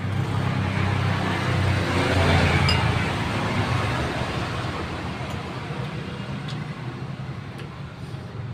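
Road traffic passing close by: the noise of a passing vehicle swells to a peak about two to three seconds in, then fades, over a steady low rumble of traffic.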